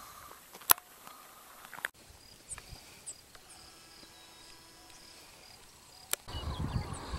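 Faint bird calls over a quiet open-air background, broken by a sharp click about a second in. Near the end the sound grows louder, with wind rumble on the microphone and more calls.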